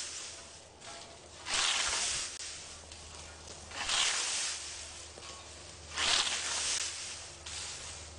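Scythe blade swishing through tall, dry grass stalks in three sweeping cuts, one about every two seconds, each a brief rush of rustling hiss as the stems are sheared and fall.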